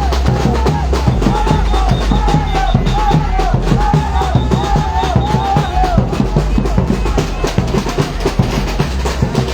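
Batucada samba percussion ensemble playing a dense, driving drum groove with deep bass drums and snare. Repeated gliding, arching squeaks ride over the drums until about six seconds in.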